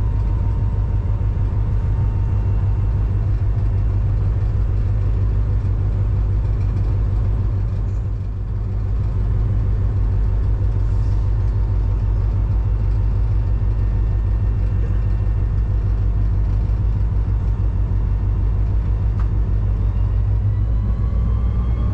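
EMD SD40-3 diesel-electric locomotive, with its 16-cylinder two-stroke EMD 645 engine, running with a steady low rumble while the train is under way.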